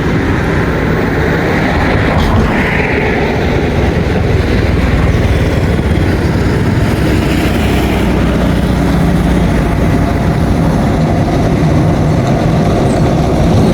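Rainy-season floodwater rushing hard through the culverts under a road bridge: a loud, steady rush of water.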